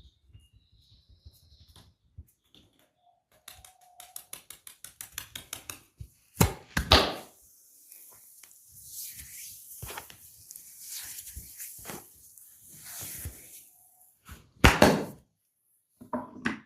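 Hands working on a head and neck during a barber massage: a run of quick, even taps, then a long rubbing hiss of hands on skin or hair, broken twice by a short, loud slap.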